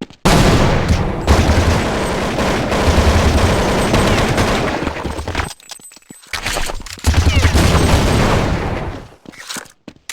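Two long rattling farts: one of about five seconds and, after a short pause, a second of about two seconds.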